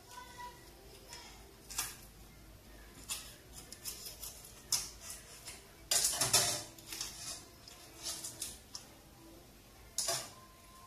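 A kitchen knife cutting up a raw whole chicken on a wooden board: scattered knocks and taps of the blade and carcass on the board, with a louder clatter about six seconds in and another knock near the end.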